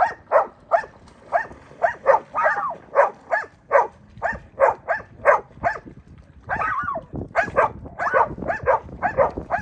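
A dog barking over and over, about two to three barks a second, with a short pause a little past halfway and one longer, drawn-out bark just after it.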